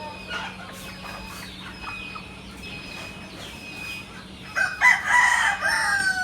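A flock of Hilli chickens clucking, with a rooster crowing loudly from about two-thirds of the way in to the end, the crow falling in pitch as it finishes.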